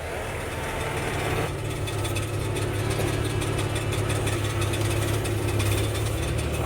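Vehicle engine idling steadily with a low, even hum, with some faint clattering on top from about a second and a half in.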